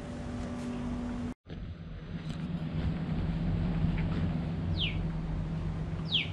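Steady low mechanical hum, broken off by a cut a little over a second in, then another steady hum. Near the end, two short calls of a bird that fall quickly in pitch.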